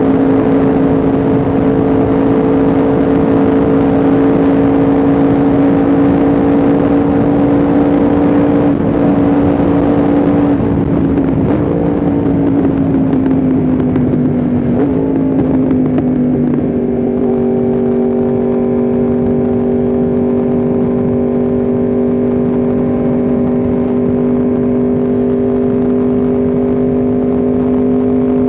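Yamaha R1M's crossplane inline-four engine running under way at a steady note, over a constant rush of noise. About halfway through the pitch wavers and sags, then it settles to a slightly lower steady note about two-thirds through.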